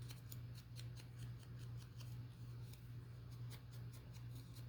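Paper being worked by hand, giving a run of faint, irregular crisp crackles and snips, over a steady low hum.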